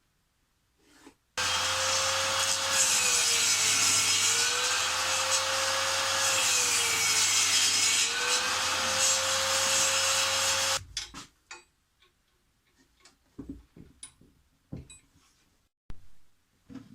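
Power saw trimming a piece of plywood: the motor runs for about nine seconds, its pitch dipping twice as the blade is loaded by the cut, then stops. A few light knocks follow.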